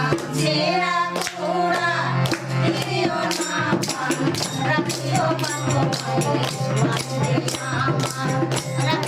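Bengali folk song: singing over a steady low drone, with sharp percussion strikes that become a quick, regular beat from about two seconds in.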